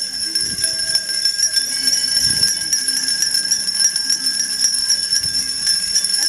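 Many small hand bells ringing together without pause, a dense, steady jingling.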